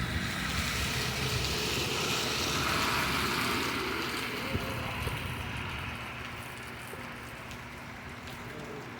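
Heavy rain falling steadily, with a swell of hiss that builds to a peak about three seconds in and fades by about six seconds.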